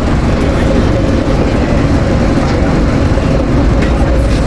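City bus cabin while riding: steady low engine and road rumble with a steady whine, and a few faint rattles.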